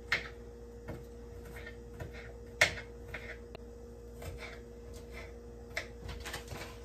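Kitchen knife cutting onions: irregular sharp taps of the blade, the loudest about two and a half seconds in, over a faint steady hum.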